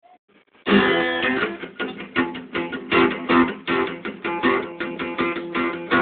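Guitar strummed in a steady rhythm, an instrumental passage of a song, coming in suddenly and loud under a second in after near quiet.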